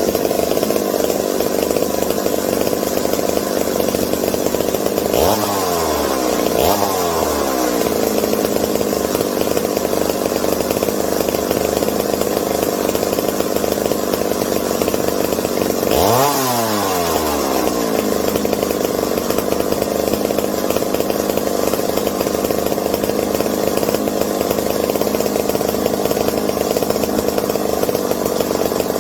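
McCulloch 740 vintage two-stroke chainsaw engine running steadily, revved up and back down twice about five seconds in and once more near the middle. Its carburetor screws have just been turned in, but the carburetor is slow to resupply fuel and leans out after revving.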